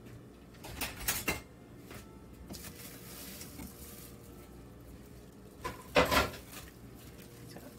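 Plastic wrap rustling as it is peeled off a slab of raw meatloaf mixture, with a few sharp clatters of a kitchen knife and utensils being handled; the loudest clatter comes about six seconds in, with a brief ring.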